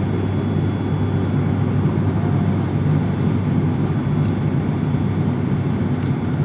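Steady drone of an airliner's engines and rushing air, heard inside the passenger cabin in flight, with an even low hum underneath.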